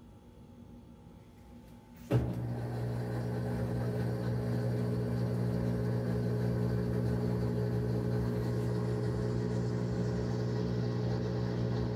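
Maytag top-load washing machine starting up about two seconds in with a sudden clunk, then running with a steady electric hum and rumble.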